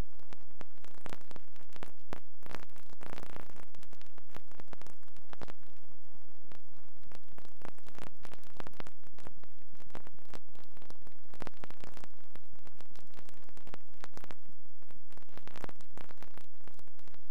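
Steady hiss and static crossed by irregular crackles and pops. This is the noise on the soundtrack of a silent 8mm film transfer, not sound from the building site.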